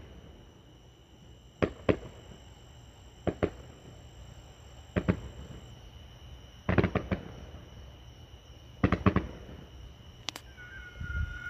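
Distant fireworks display: aerial shells bursting in sharp bangs every second or two, some single and some in quick clusters of two or three.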